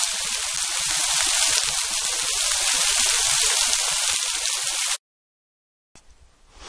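Small waterfall, thin streams of water pouring and splashing down a rock face, a steady hiss that cuts off suddenly about five seconds in.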